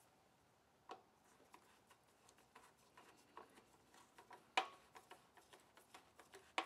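Faint clicks and ticks of a screwdriver driving the screw that holds the air filter cover onto a lawn mower engine, with a sharper click about a second in and the loudest about four and a half seconds in.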